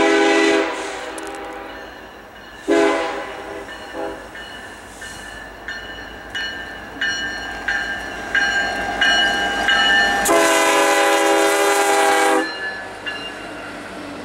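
Union Pacific SD70ACe diesel locomotive sounding its air horn for a grade crossing as it passes: a blast at the start, another about three seconds in, and a long blast of about two seconds some ten seconds in. The passing freight train runs steadily between the blasts.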